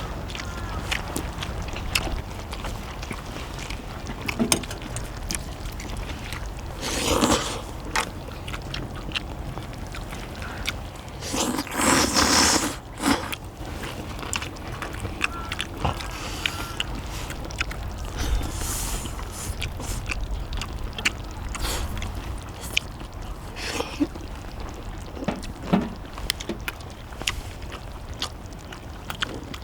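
Eating at a cast-iron pot-lid griddle: utensils scraping and clicking against the lid, with a few louder bursts of noise about seven and twelve seconds in.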